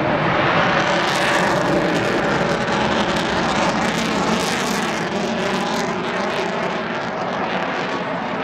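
Eurofighter Typhoon's twin Eurojet EJ200 jet engines producing a loud, continuous rush of jet noise as the fighter flies a banked turn, with a rasping crackle setting in about a second in.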